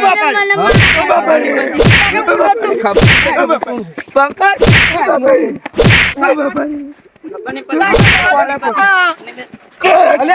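A beating: about six sharp smacking blows, roughly a second apart, with a man crying out and shouting between them.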